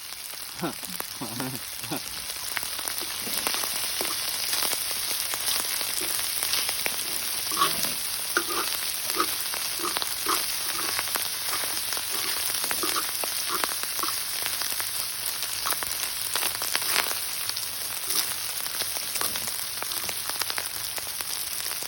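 Food frying in oil on a cast-iron cauldron-lid griddle: a steady sizzle with frequent spattering pops, growing louder about two seconds in.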